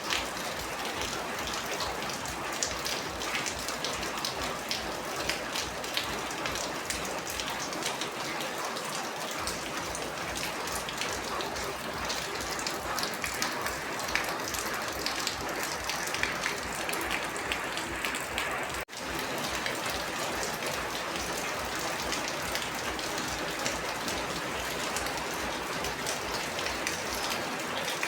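Steady rain falling, a dense patter of many individual drops. It cuts out for an instant about two-thirds of the way through.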